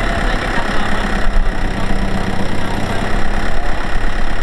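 Tractor diesel engine running steadily close by.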